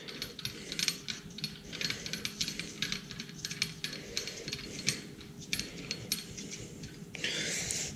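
Hand ratchet clicking in quick runs as it tightens down the oil filter bolt on a Farmall Cub engine, with a faint steady hum underneath.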